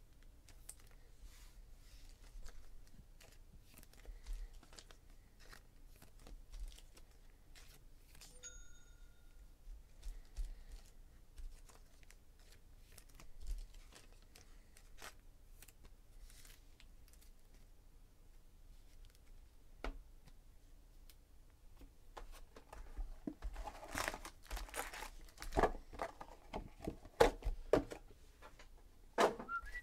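Cardboard trading-card box torn open by hand, with its foil-wrapped card packs rustling and crinkling as they are pulled out and handled. Scattered light clicks and rustles at first, growing into steady, louder crinkling over the last several seconds.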